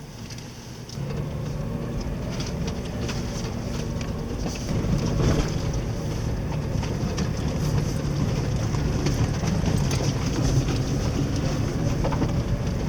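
Off-road vehicle engine running steadily under load. It comes up about a second in and grows louder near five seconds, with scattered clicks and hiss over it.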